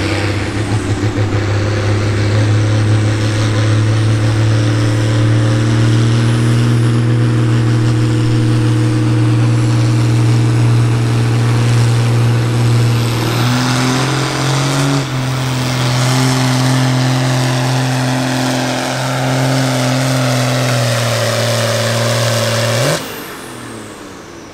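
Farm stock diesel tractor engine running flat out under load on a pull, a steady heavy drone that dips briefly in pitch about halfway through. Near the end it falls away suddenly as the throttle is cut at the end of the pull.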